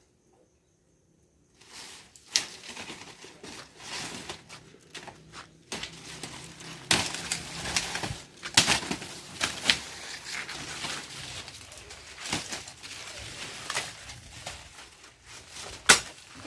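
A panga chopping sugarcane stalks: several sharp strikes at irregular intervals, with crackling and rustling of the cane between them. The first second and a half is silent.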